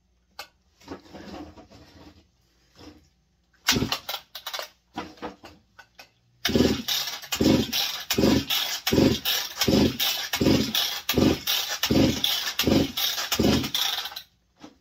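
Husqvarna 162SE two-stroke chainsaw engine turned over by a rapid series of pulls on its recoil starter, about a dozen pulses in quick even succession after a single pull, without firing. It is being cranked for a compression test, with a gauge in the spark-plug hole.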